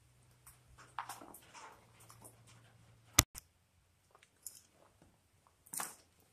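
Faint scattered rustles and small clicks of handling, with one sharp click about three seconds in that is the loudest sound, where a low background hum stops; a short rustle comes near the end.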